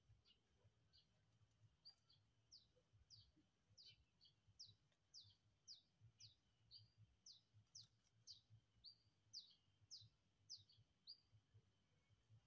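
Faint bird calling: a run of short, high whistled notes, each falling in pitch, about two a second, starting a couple of seconds in and stopping near the end.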